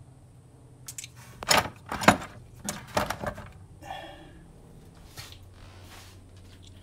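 Hard objects being handled: a quick run of sharp clanks and knocks over a couple of seconds, loudest about two seconds in, over a low steady hum.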